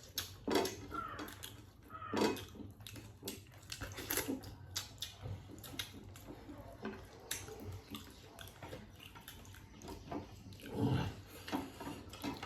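Close-up eating sounds: chewing and lip-smacking in many short wet clicks, with a few louder mouthfuls about half a second in, around two seconds in and near the end.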